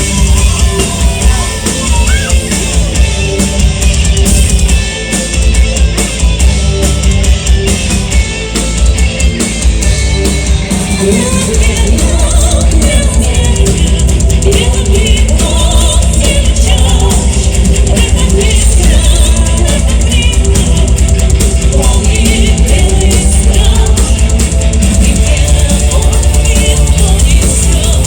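Metal band playing live, with a drum kit and bass drum driving the music. It becomes denser and more even in loudness about twelve seconds in.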